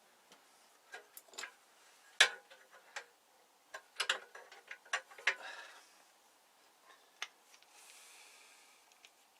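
Scattered clicks and taps of small metal parts being handled as a cheap belt sander is taken apart, the loudest about two seconds in and a quick run of them around four to five seconds; a faint soft hiss near the end.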